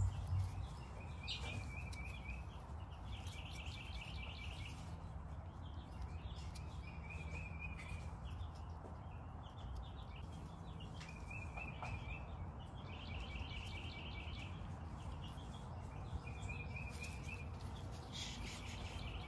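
A small wild bird singing short, fast, high trills, repeated every second or two, over a steady low rumble of background noise.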